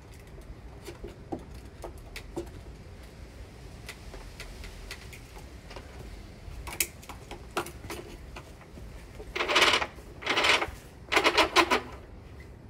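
Handling noises from working sash cord and window parts: scattered light clicks and taps, then from about nine seconds in four loud rasping scrapes, each under a second long.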